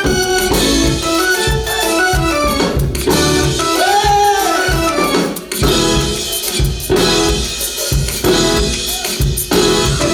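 Church praise music played on a drum kit and other instruments, with regular drum strokes under the melody.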